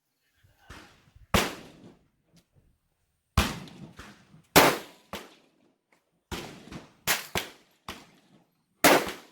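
Rifle shots on a firing line, about ten at uneven spacing: some loud, each fading away in a short tail, and others fainter.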